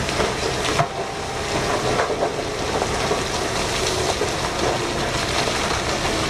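Giant mining haul truck tipping its dump body: its engine runs under load while a mass of rock pours out of the raised bed. The result is a steady rushing noise with scattered knocks of falling stone.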